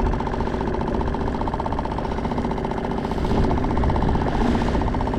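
Tohatsu 5 hp outboard motor running steadily at low trolling speed, driving a small skiff through choppy water.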